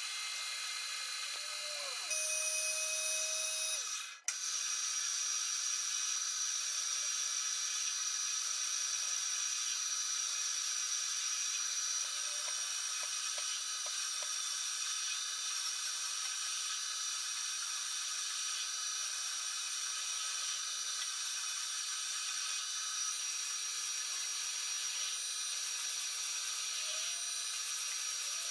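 Metal lathe running under cut, a carbide tool turning a spinning metal workpiece: a steady high machine whine with the hiss of cutting. About four seconds in the sound drops out briefly and comes back with a click.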